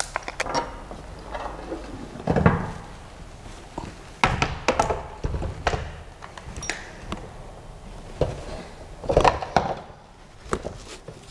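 Parts of a Creality CR-6 SE 3D printer kit being handled and fitted together during assembly: scattered knocks, clunks and clicks. The loudest is a single clunk about two and a half seconds in, followed by a cluster of knocks a few seconds later and another around nine seconds in.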